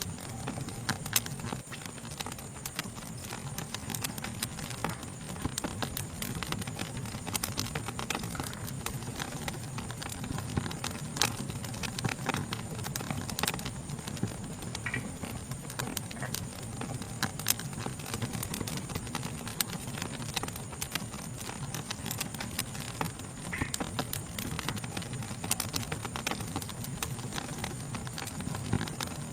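Wood fire crackling with irregular sharp pops and snaps over a low steady rumble, and a steady high-pitched insect chorus behind it.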